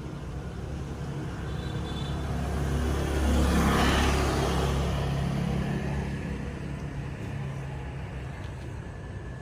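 A motorbike passing close by: its engine hum grows louder to a peak about four seconds in, then fades away.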